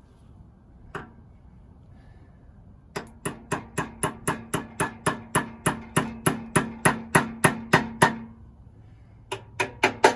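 Hammer tapping a 1/4-inch steel key into the keyway of a leaf blower engine's crankshaft: one knock, then a steady run of about four metal-on-metal strikes a second over several seconds with a ringing tone under them, and a few more taps near the end.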